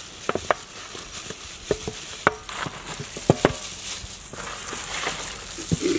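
Gloved hands mixing raw chicken drumsticks with ginger-garlic paste in a large aluminium tray: wet squelching with scattered sharp clicks and taps.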